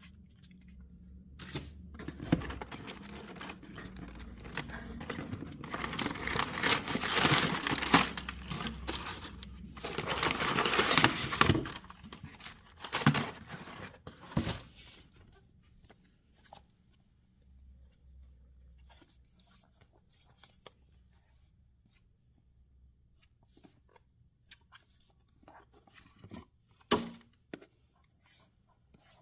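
Packaging being torn and crinkled open by hand for about thirteen seconds, loudest in the middle, followed by soft handling clicks and one sharp click near the end.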